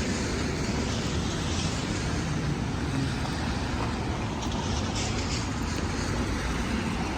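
Steady road traffic noise: passing vehicles running by without a break.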